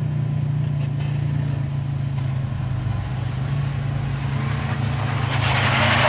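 Jeep Wrangler Rubicon's engine pulling at steady low revs as it crawls up a rock ledge. About four and a half seconds in, a hiss rises over it.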